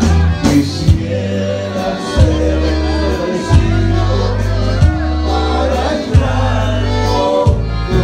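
Live dance band playing loudly, with a singer over a heavy bass line and a sharp beat about every 1.3 seconds.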